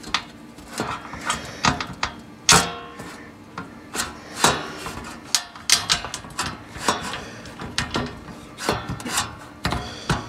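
Irregular knocks, clicks and scrapes of powder-coated steel cargo-basket panels and their bolts being handled and fitted together, with a sharper metal knock about two and a half seconds in.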